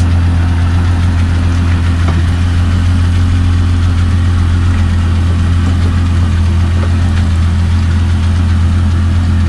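Outboard motor of a small aluminium runabout idling steadily, a constant low hum that holds the boat while it waits to come alongside another.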